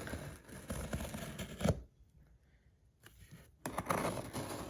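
Rustling, scraping and small clicks of a package being handled, dropping to near silence for about a second and a half midway before the handling noise resumes.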